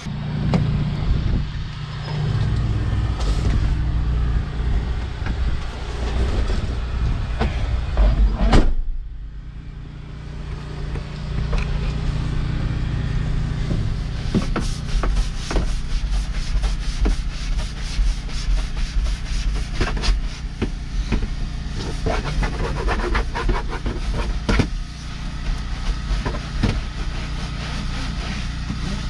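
Long-handled scrub brush scrubbing a wet, soapy ribbed truck-cab floor in quick repeated strokes, starting about halfway through, over a steady low mechanical hum.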